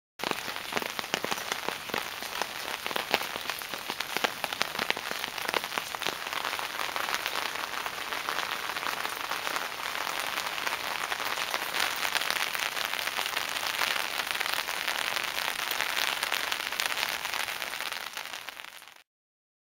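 Steady rain falling, with a dense spatter of individual drops splashing on wet ground and into puddles. It starts suddenly and fades out near the end.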